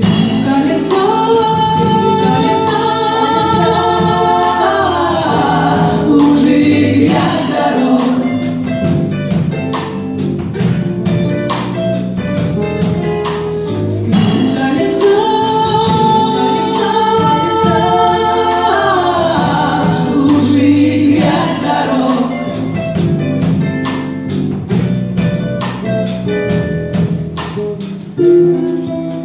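Live pop song played by a band with drums, bass guitar and guitars, with female voices singing together in harmony over a steady drum beat.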